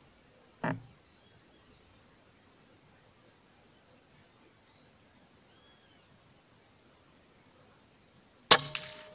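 A single sharp rifle shot near the end, followed by a brief metallic ring. Before it, insects chirr steadily in a fast, even pulse, with two short whistled bird calls and a soft knock about a second in.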